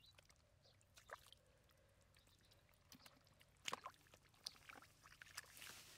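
Faint splashing and squelching of hands groping in shallow muddy water, with scattered small clicks and a short watery rush near the end.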